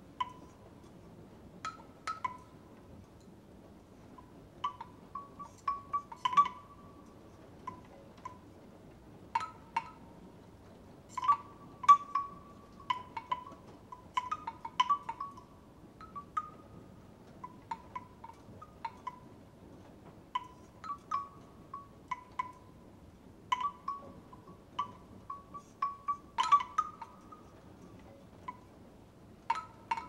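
Bamboo wind chimes knocking together irregularly: short, hollow pitched clonks on a few close notes, sometimes single and sometimes in quick clusters, with brief pauses between.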